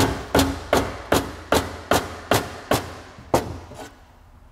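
A soft-faced mallet striking the aluminium case of an Eaton M62 roots supercharger, knocking the housing loose. About nine sharp knocks, roughly two and a half a second, stop a little over three seconds in.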